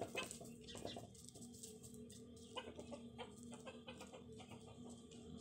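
Chickens clucking softly in short calls, mostly in the first second, among scattered light clicks, over a faint steady hum.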